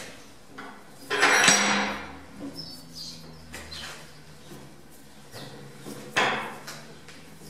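Ball bearing being handled and turned in a homemade steel bearing cap held in a vise: metal scraping and clinking. It is loudest in a scrape about a second in and in a sharper hit around six seconds that dies away.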